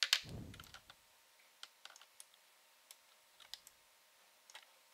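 Light clicking at a computer: a sharp click with a brief low thud at the start, then scattered single clicks every half second or so.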